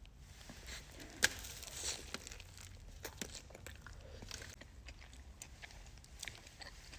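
Close-up chewing of a burrito: soft, scattered mouth clicks and smacks, with one sharper click just over a second in.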